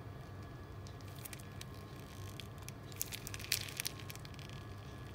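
Faint crinkling and squishing of a plastic piping bag squeezed by hand, in short clusters about a second in and again around three to four seconds, over a low steady hum.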